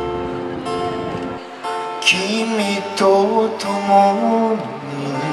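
Acoustic guitar playing chords, strummed and picked. From about two seconds in, a man's voice holds long sung notes without clear words.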